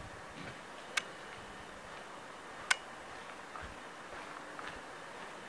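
Two sharp ticks about a second and a half apart over a faint steady hiss.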